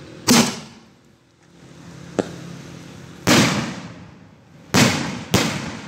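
Aerial fireworks shells fired from a ground rack of mortar tubes: four loud bangs, each trailing off with echo, and a single sharper crack about two seconds in.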